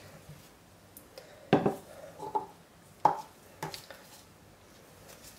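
A few light knocks and clatters of plastic kitchenware: a silicone spatula tapping against a plastic bowl and plastic jugs being set down on a wooden worktop, with quiet gaps between. The sharpest knocks come about a second and a half in and about three seconds in.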